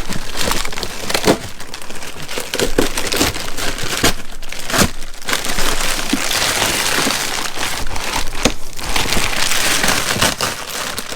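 Plastic bag crinkling and rustling as it is pulled off and handled, with many sharp crackles.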